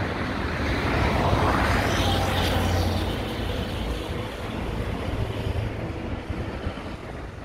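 Road traffic on a busy main road: a steady rumble of passing vehicles, with one vehicle going by loudest about two seconds in before the noise eases.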